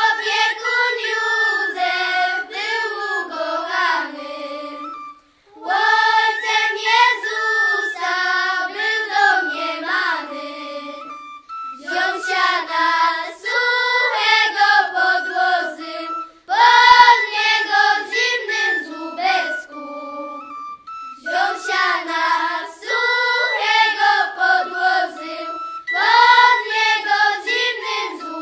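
Children's folk singing group singing a carol, in phrases of about five seconds with short breaks between them.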